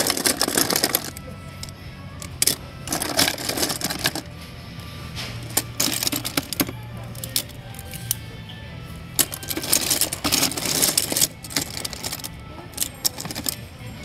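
Small hard-plastic Ranger Key toys clattering against each other in a bin as a hand rummages through them, in several bursts of rattling clicks.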